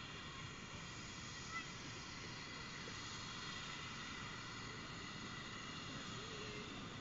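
Miniature steam locomotive approaching slowly with its train, a faint, steady running sound.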